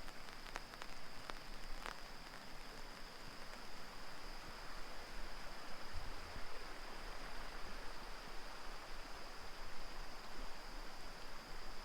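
Light rain falling: an even hiss of rain with a few sharp drop ticks in the first couple of seconds. A steady high-pitched tone runs through it.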